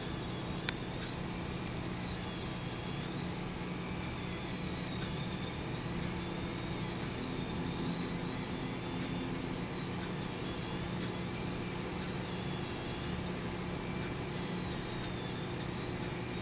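Seasonic S12EP 650HT power supply making an abnormal noise: a high whine that swings up and down in pitch about every two and a half seconds over a steady low hum. A single sharp click sounds just under a second in.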